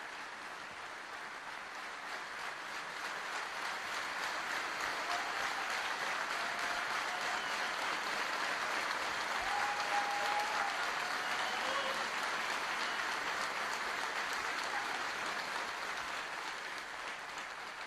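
A large audience applauding, the clapping swelling over the first several seconds and easing off near the end.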